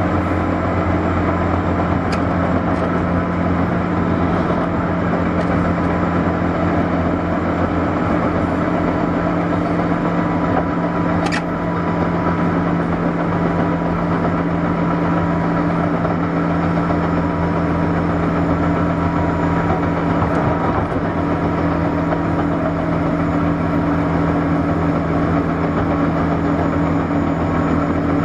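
Interior running sound of a JR 201 series electric train, heard inside one of its motor cars: a steady traction-motor hum over the rumble of wheels on rail. There is one brief sharp click about eleven seconds in.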